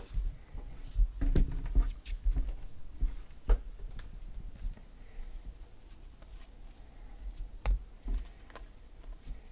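Stack of baseball trading cards being flipped through and shuffled by hand, with irregular light clicks and soft handling thumps.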